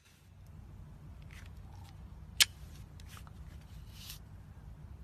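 A single sharp pistol shot about two and a half seconds in, with a few fainter clicks and rustles of handling around it and a steady low rumble underneath.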